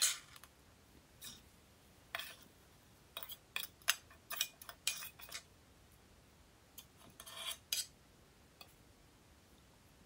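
A metal utensil scraping and clinking against a stainless steel plate as crumbled white cheese is scraped off it. The sound comes as a series of short scrapes and taps, with one longer scrape about three-quarters of the way through.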